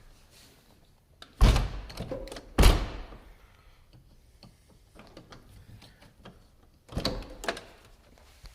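Car door and its latch mechanism on a 1996 VW Jetta clunking loudly twice about a second apart, then again with a few lighter knocks about seven seconds in. The latch's return spring is broken, so the latch stays out and jams in the catch as the door is worked.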